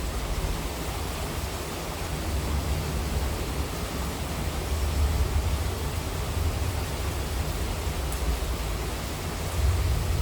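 Steady heavy monsoon rain, an even hiss over a deep low rumble.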